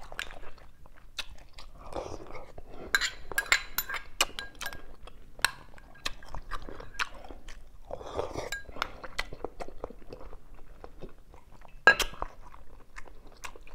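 Close-up eating sounds: a person chewing mouthfuls of soft stuffed cucumber and rice, with a metal spoon clinking against a ceramic bowl many times. The loudest clink comes about 12 seconds in.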